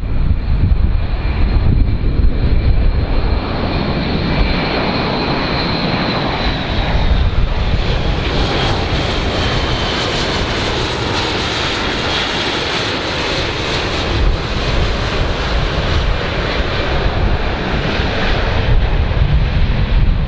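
Large airplane's engines running loud and steady, a dense rush with a high whine on top that drops slightly in pitch about halfway through.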